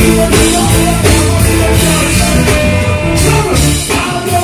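Loud live reggae music from the stage band, with heavy bass and regular drum hits.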